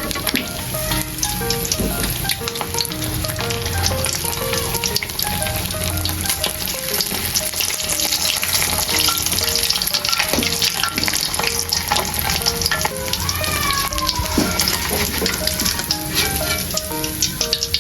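Food frying in hot oil, a steady dense sizzle with constant fine crackling and spattering, under light background music.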